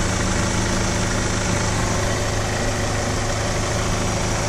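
2003 Toyota Corolla's VVT-i 16-valve four-cylinder engine idling steadily with the AC compressor engaged and running. The compressor runs only because its failing relay has been struck.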